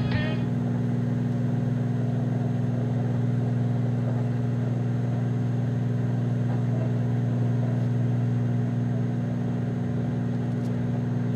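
Microwave oven running: a steady, even low hum.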